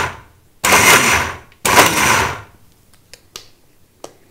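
Mixer grinder (mixie) with a stainless steel jar pulsed on soaked dals: its motor whirs in short bursts of about a second, the tail of one and then two more, before stopping. The short pulses grind the dal to a coarse paste. A few light clicks follow near the end as the steel jar is handled.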